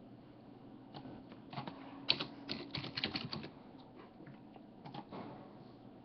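Pencil tapping and scratching on paper over a table: a run of quick, light clicks for a couple of seconds, then a few scattered taps.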